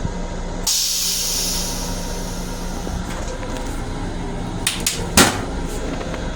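A sudden hiss starts about a second in and fades away over about two seconds, over a steady rumble and hum. A few sharp clicks follow near the end.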